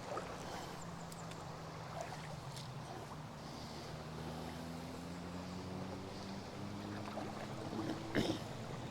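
River water running steadily over the fast current, with a faint low drone that rises slowly in pitch and a short knock near the end.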